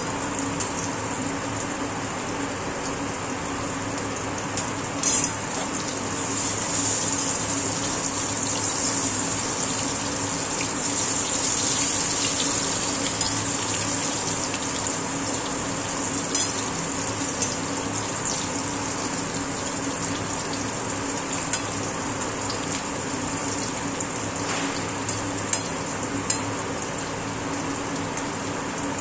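Brinjal slices sizzling as they shallow-fry in oil in a metal kadai, the sizzle a steady hiss that swells for a few seconds about a fifth of the way in. A few sharp clicks of the spatula against the pan as the slices are turned.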